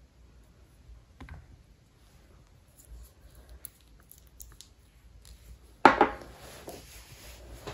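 Small handling sounds on a paper-towel-covered table: faint clicks and ticks, then a sharp knock about six seconds in followed by about two seconds of rustling and scraping.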